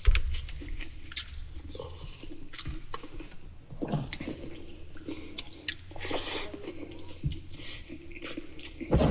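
Close-up chewing of a mouthful of masu bhat (rice and meat curry), with scattered wet smacking clicks.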